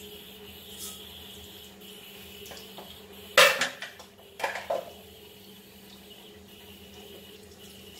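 Metal kitchenware clattering: one loud clank about three and a half seconds in, then two lighter knocks a second later, over a steady background hum.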